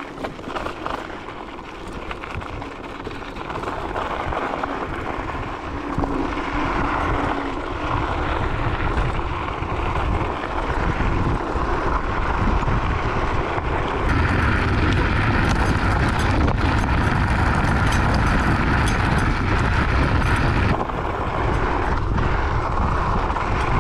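Varla Eagle One electric scooter on off-road tyres riding a gravel and dirt trail: wind rumbling on the camera microphone and tyres crunching over gravel, with scattered small clicks and rattles. It grows louder as speed picks up about four seconds in and is loudest for several seconds past the middle, easing a little near the end.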